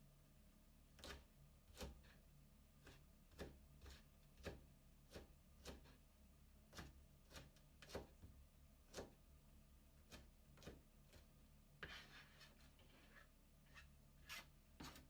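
A kitchen knife shredding cabbage into thin strips, each stroke a crisp crunch ending in a tap on the cutting board, about two a second. A short rustle of the leaves about twelve seconds in.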